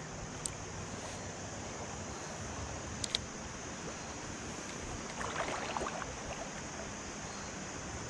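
Creek water flowing steadily over a shallow riffle, with a couple of faint sharp clicks and a brief light rattle around the middle.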